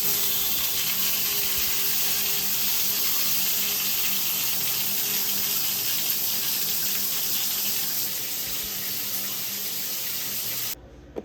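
Water running steadily from a tap into a sink, shut off abruptly near the end.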